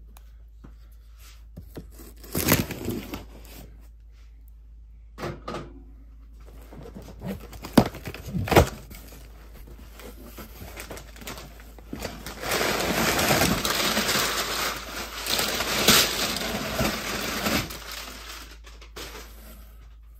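Large cardboard shipping box being opened by hand: a few sharp knocks and scrapes of cardboard, then about five seconds of steady tearing and rustling of the packaging from about twelve seconds in.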